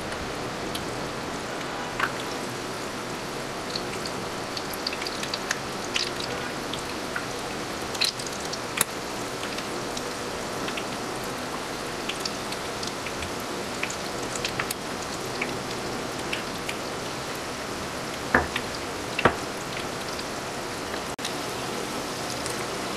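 Hot oil sizzling steadily as batter-coated green chillies (mirchi bajji) deep-fry in a small pan, with scattered crackles and a few sharper pops.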